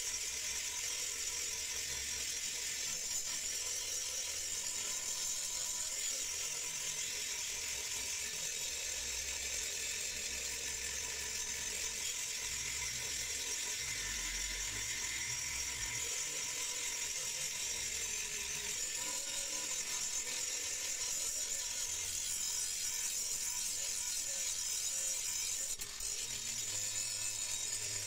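Electric angle grinder with an abrasive disc grinding the rusty steel blade of an old meat cleaver: a steady high grinding hiss over the motor's even whine, dipping for a moment near the end.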